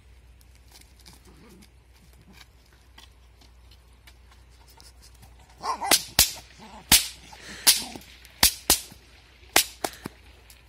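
Bullwhip cracking repeatedly: about eight sharp, loud cracks over some four seconds, starting about halfway in, with only faint small taps before them.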